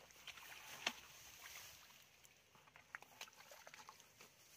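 Hands squelching and splashing in wet mud and shallow water: faint, irregular wet slaps and clicks, the sharpest about a second in.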